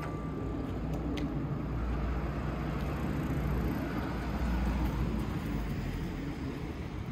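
Outdoor roadside ambience: a low, steady rumble of street noise that swells a few seconds in and eases off again, with a bell-like ring dying away in the first second.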